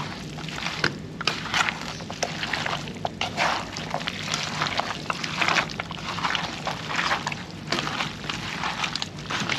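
Wet squelching and sloshing from hands working seasoning into raw meat in a bowl, in irregular squishes over a faint steady low hum.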